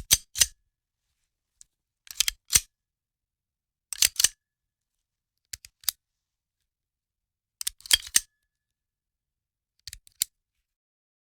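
Handgun being handled: short groups of two to four sharp metallic clicks and clacks, about every two seconds, with silence between.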